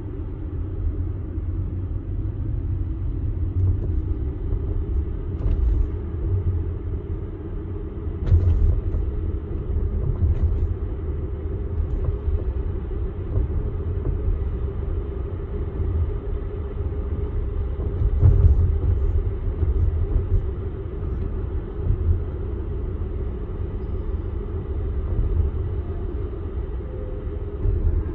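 Tesla Model X rolling over a rough stony road: steady low tyre and road rumble with no engine note, broken by a few sharp knocks from the car, the loudest about eight and eighteen seconds in. The knocks are the knocking noise the owner is documenting on this rough surface.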